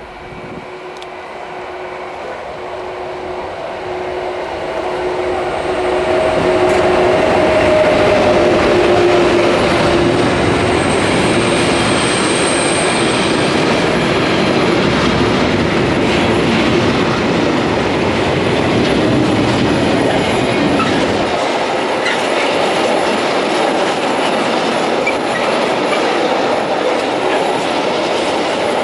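DB Class 152 electric locomotive hauling a container freight train past at close range: the sound grows over the first several seconds as it approaches, with a steady hum, then the wagons go by with a steady clatter of wheels on rails. A brief high-pitched wheel squeal comes a little before the middle.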